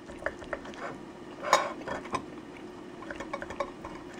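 Metal fork clicking and scraping against a ceramic plate while tearing at tough boiled chicken, in small irregular ticks with a longer rasp about a second and a half in.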